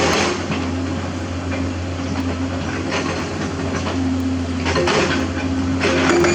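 Hydraulic excavator's diesel engine running with a steady low drone and engine tones, the noise easing a little after the start and swelling again near the end as the machine works, with a few light clinks.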